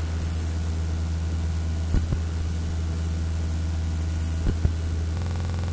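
Steady low electrical hum under even hiss, with two pairs of short soft clicks about two and a half seconds apart.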